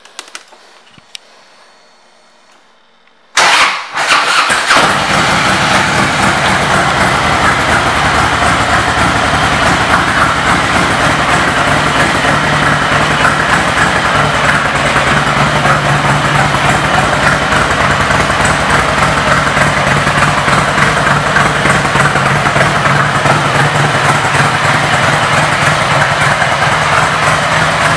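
2005 Harley-Davidson Road King's V-twin engine, fitted with a Screamin' Eagle exhaust, starting about three and a half seconds in after a few faint clicks. It catches at once with a loud burst and then idles steadily.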